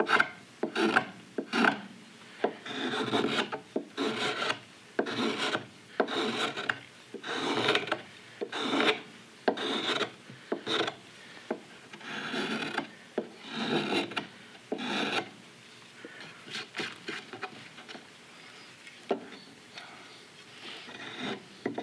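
Hand carving tool shaving green sycamore wood in repeated scraping cuts, about one a second, growing fainter and sparser in the last few seconds.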